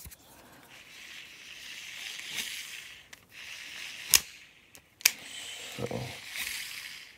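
Shimano Exsence DC baitcasting reel's spool spinning with a whirring hiss that swells twice, its spool tension turned up to maximum, with two sharp clicks a second apart in between. The DC brake's usual whine is faint or missing, the fault being tested.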